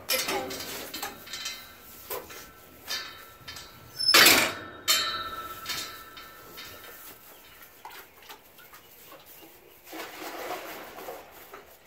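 Knocks and clanks of a pail and the pen's metal gate, with a louder clatter about four seconds in. Near the end, water is poured from a pail into a bucket for about a second while the lambs' water is topped up.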